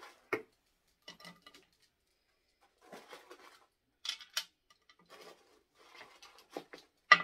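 Small items being handled and put back into a box: scattered light clicks, knocks and rustling, with a sharper click near the end.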